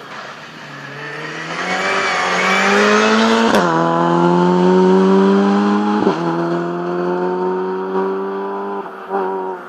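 Rally car passing at full throttle, its engine climbing in pitch and dropping sharply at two upshifts, the first about a third of the way in and the second past the middle, then running on high as it pulls away.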